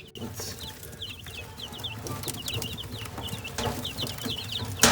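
A brood of baby chicks peeping continuously, many short high chirps each dropping in pitch, with one sharp knock near the end.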